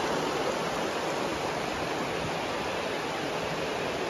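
Shallow river rushing over a stony bed, a steady wash of water noise.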